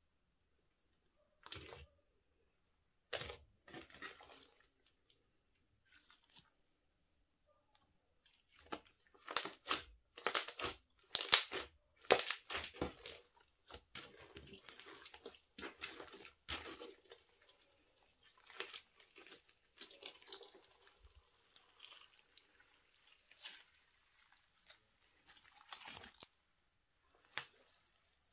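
Hands kneading, poking and folding a thick sequin-and-glitter slime, making sticky clicks and pops. A few single pops come in the first seconds, a dense run of crackling follows from about nine to seventeen seconds in, then it thins out.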